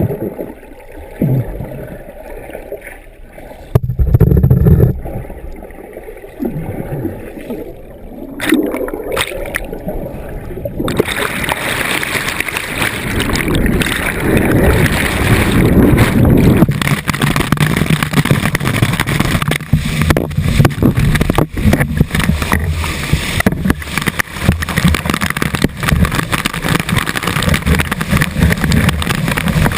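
Water sounds from a swim at a waterfall: muffled sloshing and gurgling with a few sudden surges, then from about eleven seconds in a loud steady rush of falling water that stays to the end.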